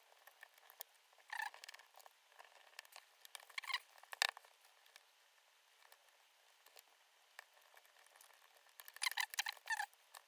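Clicks and creaks of a small Sony hard-disk Walkman's casing being handled and pried open, in three short clusters: about a second and a half in, around four seconds, and near nine seconds.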